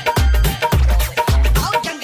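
Punjabi dhol remix music with a heavy bass beat, about two deep hits a second; the bass drops out near the end.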